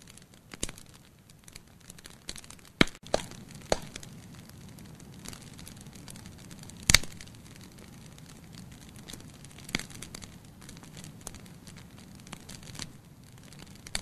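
Burning firewood in a fireplace crackling, with scattered sharp pops among many small ticks, the loudest pop about seven seconds in, over a faint steady low noise of the flames.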